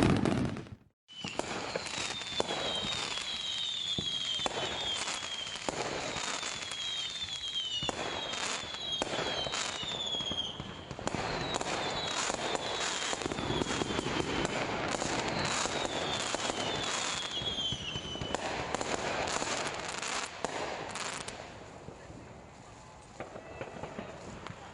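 New Year fireworks going off in a steady barrage of crackling and sharp pops, with short high whistles that fall in pitch coming again and again. The barrage thins out over the last few seconds.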